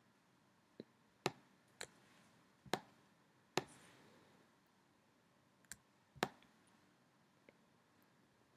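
Computer mouse clicking: about eight sharp, separate clicks at uneven intervals, some louder than others, over faint room tone.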